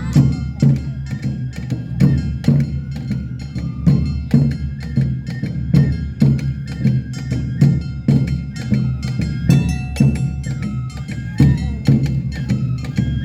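Awa odori festival music played live: taiko drums striking a steady two-beat rhythm, with sharp metallic and woody clacks and a high melody line over them.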